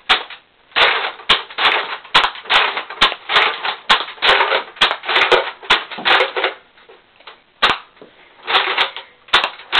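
Nerf Vulcan EBF-25 belt-fed dart blaster firing a rapid string of shots, each a sharp click with a short burst of air, about two to three a second. The string pauses around seven seconds in, then a few more shots follow.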